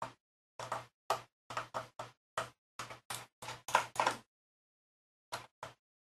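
Small Phillips screwdriver turning a tiny screw out of a MacBook Pro's memory access panel: a quick run of short clicks and scrapes for about four seconds, a pause, then two more near the end.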